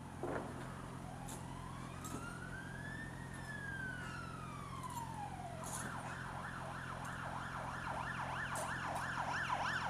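Fire engine siren approaching: a slow wail rising and then falling, switching about halfway through to a fast yelp, then back into a rising wail near the end, over the steady low hum of an idling motorcycle engine.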